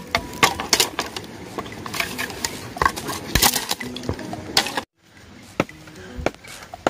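Dry dead wood cracking and knocking in a quick, irregular series of sharp snaps as driftwood branches are handled and broken. After a brief cut about two-thirds of the way in, a light music track plays under a few more knocks.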